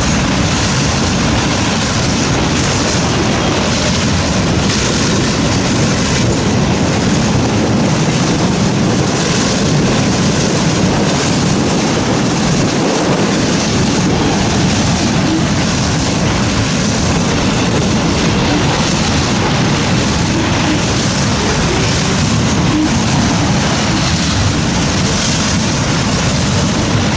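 A CSX auto train's freight cars rolling steadily past, with a continuous rumble and rattle of wheels on the rails.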